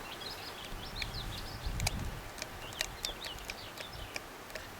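Small birds chirping in short repeated phrases, with a few faint clicks.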